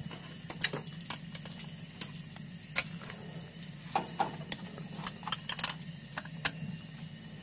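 Light, irregular metallic clicks and clinks of hand tools as the clutch bleeder screw on a Hino 500 truck is tightened again, the air having been bled out of the clutch line. A steady low hum runs underneath.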